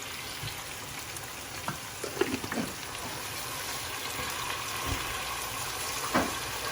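Onions and ginger-garlic paste frying in hot oil in a pot, a steady sizzle, with a few light knocks from stirring.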